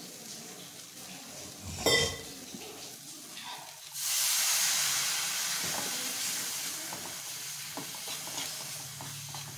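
Water poured into a pan of green chillies frying in oil with chilli powder, hitting the hot oil with a sudden loud sizzle about four seconds in that slowly dies down. There is a short sharp knock about two seconds in, and light spatula stirring near the end.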